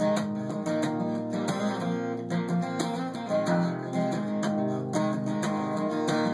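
Acoustic guitar with a capo on the neck, strummed in a steady rhythm of chords with no singing: an instrumental passage between verses of a song.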